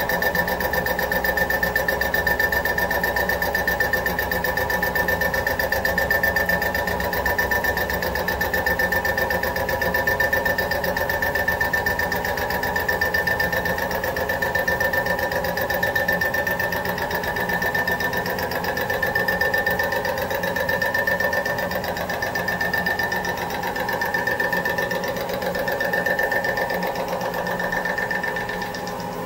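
Single-point fly cutter on an 11-inch bar spinning in a CNC mill spindle, taking a light face cut across a cast aluminum plate. It makes a steady high whine with a fast, even ticking from the cutter's repeated strikes. The sound drops off at the very end.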